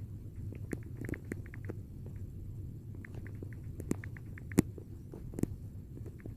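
Fingers tapping out text on a smartphone's touchscreen keyboard: quick, irregular runs of light clicks and ticks, with a few sharper, louder taps past the middle, over a low room hum.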